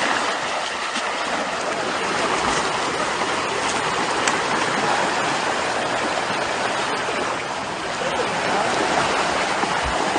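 Steady rushing of fast-flowing river water.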